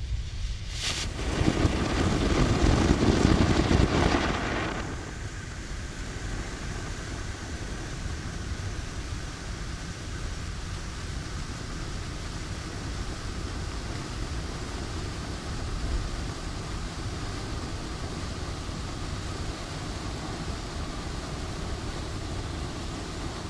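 Red Delight mushroom firework fountain going off: a short crack about a second in, then a loud rushing spray for about four seconds, which settles into a quieter steady hiss.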